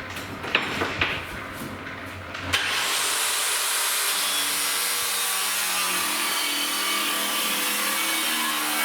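A few knocks, then a power tool starts abruptly about two and a half seconds in and runs steadily with a loud, hissing noise.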